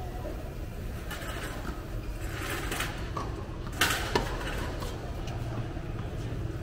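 Tennis balls struck by rackets during a doubles rally: fainter hits earlier, then a loud, sharp racket-on-ball hit about four seconds in, followed by a second sharp pop a moment later. A steady low hum runs underneath.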